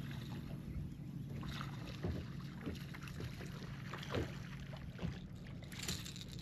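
Waves slapping and knocking against the hull of a bass boat in wind, with wind noise on the microphone over a steady low hum. Sharp slaps come irregularly, the strongest about four seconds in.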